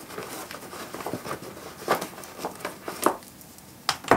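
Hands rummaging in the stretch-fabric pocket of a hard-shell carry case, rustling cloth and pulling out charging cables, with a few sharp clicks and knocks, loudest about two, three and four seconds in.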